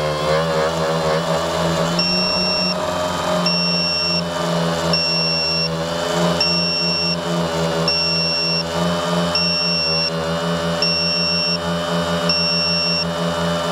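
Tricopter's brushless motors whining right beside the onboard camera, the pitch dipping at the start and then holding steady. From about two seconds in, a high electronic beep sounds for most of a second, about every second and a half.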